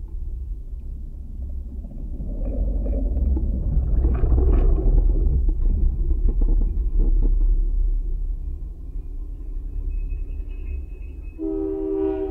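Deep rumble and knocking of a wooden boardwalk picked up through contact microphones clipped to it, as people walk and cycle over the planks; loudest around four to five seconds in. Near the end a diesel locomotive's horn starts sounding a steady chord.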